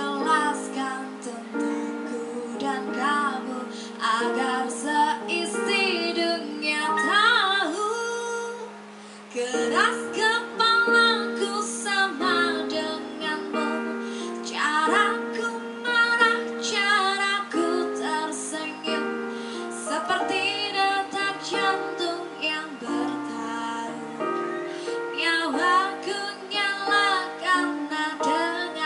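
A girl singing karaoke into a microphone over a backing track with held keyboard notes, pausing briefly about nine seconds in before the next phrase.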